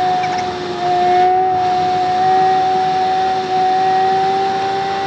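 A loud, steady whistle-like tone held without a break, two pitches sounding together, starting suddenly.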